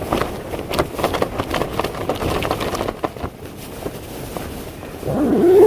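Rain and wind hitting a small backpacking tent's fabric: a dense, irregular pattering and flapping that eases off after about three seconds. Near the end, a man's drawn-out, wavering groan.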